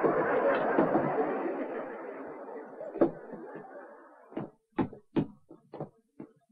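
Studio audience laughter, dense at first and fading away over about four seconds. It is followed by a handful of short, sharp sounds, about three a second.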